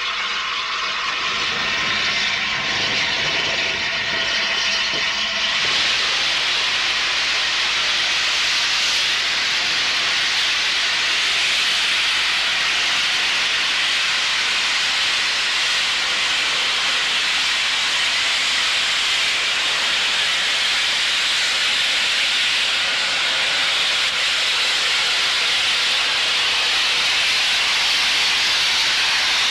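Steam locomotive 71000 Duke of Gloucester, a BR Standard Class 8 4-6-2, letting off steam: a loud, steady hiss with no beat that comes in about five seconds in and holds on.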